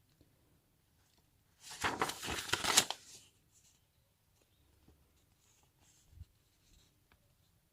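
Paper rustling sharply for about a second and a half as a sheet of the kit's instruction manual is handled, followed by faint small taps and rustles.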